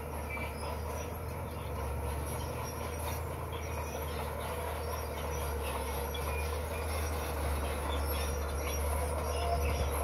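Komatsu crawler bulldozer's diesel engine running steadily, with squeaks and clanks from its steel tracks as it creeps forward.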